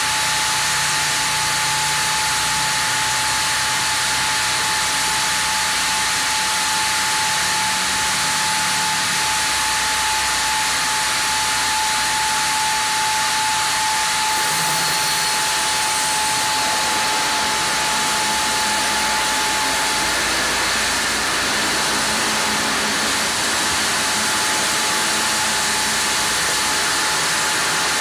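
Sawmill band saw cutting lengthwise through a Japanese kalapanax log as the carriage carries it past the blade: a steady rushing hiss of the blade in the wood with a constant high whine running through it.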